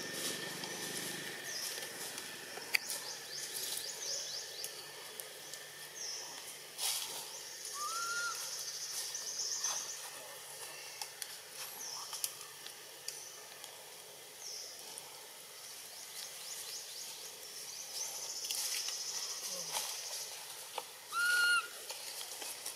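Infant long-tailed macaque giving short whimpering cries, each a quick rise-and-fall: one faint cry about a third of the way in and a louder one near the end, against quiet outdoor ambience.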